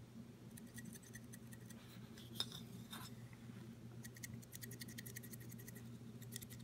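Faint handling noise as a painted miniature on its holder is turned in the hand: a light click about two and a half seconds in, then a run of soft scratchy ticks in the second half, over a low steady room hum.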